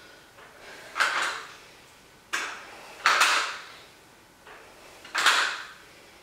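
A woman exhaling hard in effort with each bent-over dumbbell row: four short, noisy breaths out, about one every second or two, the second starting with a sharp click.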